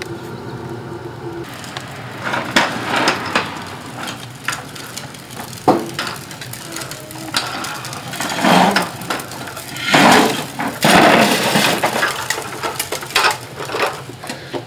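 Hard plastic wheels of toddlers' ride-on toys and tricycles rolling over concrete, a rough grinding rattle broken by clicks and knocks. It comes in uneven stretches, loudest about eight to twelve seconds in.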